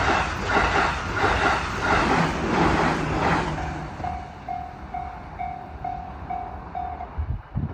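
A train runs through a Japanese level crossing and its running noise fades after about three and a half seconds. The crossing's electronic warning bell rings throughout at about two strikes a second; it is heard clearly once the train has passed and stops about seven seconds in. A couple of low thumps follow near the end.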